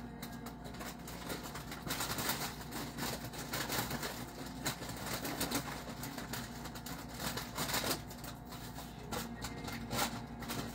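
Irregular light clicks, knocks and rustling of kitchen items being handled, busiest from about two to eight seconds in.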